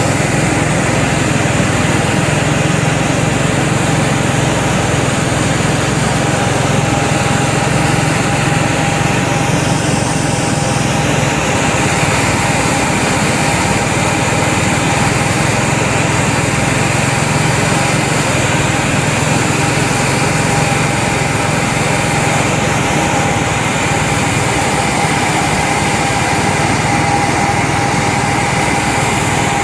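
Small engine running steadily at constant speed, with a high whine over a low hum.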